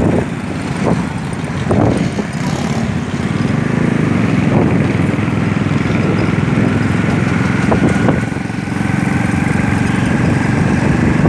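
Small engine of the moving vehicle carrying the camera, running steadily along a city street, with a faint whine that slowly rises in pitch over the second half and a few brief sharp traffic sounds.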